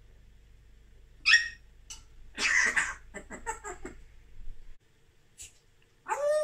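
African grey parrot vocalising off-camera. It gives a sharp high whistle-like call about a second in, then a harsh rasping burst and a string of short chattering sounds. Near the end it starts a drawn-out, voice-like call that falls in pitch.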